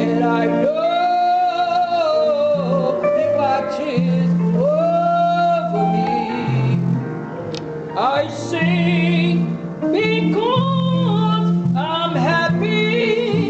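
A woman singing solo in long held notes with vibrato, over steady low instrumental accompaniment.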